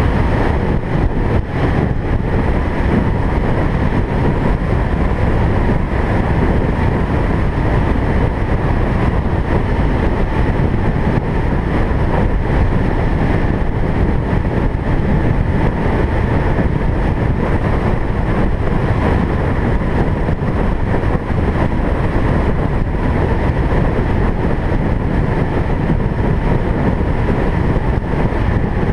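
Car driving at a steady speed: continuous engine and road noise, with a faint steady whine above it.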